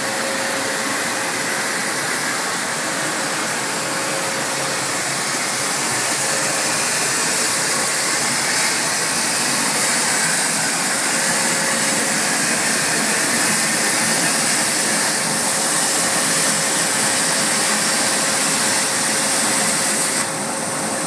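Techserv Blue Marlin CNC plasma cutter cutting metal plate: the plasma arc's loud, steady hiss, with a faint steady whine running through it.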